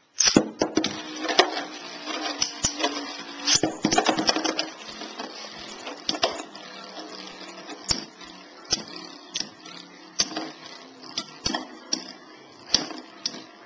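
Two metal Beyblade spinning tops, Lightning L-Drago 100HF and Rock Aries ED145B, launched by ripcord into a plastic stadium. They spin with a rattling whir that is loudest for the first few seconds and then settles quieter, with repeated sharp clacks as they collide.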